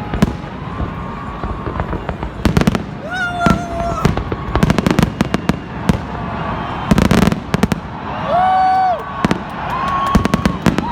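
Fireworks going off: many sharp bangs and crackles in quick succession, with a few short held tones heard over them.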